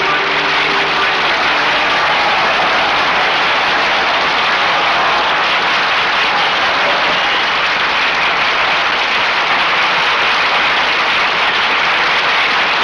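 A large audience applauding, a dense, steady sound of many hands clapping.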